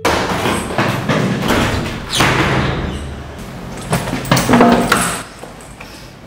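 Restroom doors being pushed open and banging, with several knocks and thumps and the rustle of clothing and a bag. It goes much quieter about five seconds in.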